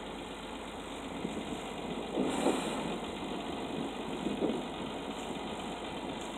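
John Deere 7020's turbocharged six-cylinder diesel engine running at low speed, with a brief rise in loudness about two seconds in and again about four seconds in.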